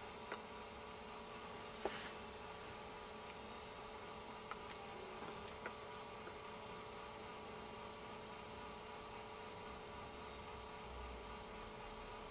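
Faint steady hum made of several held tones over a light hiss, with a few soft clicks in the first half, the sharpest about two seconds in.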